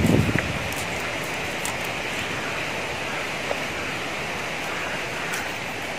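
A steady, even rushing hiss, with a low thump right at the start.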